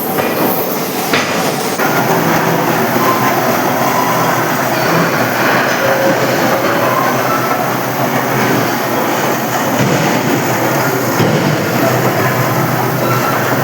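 Loud, steady clatter of heavy industrial machinery in a forging shop, with a short knock about a second in.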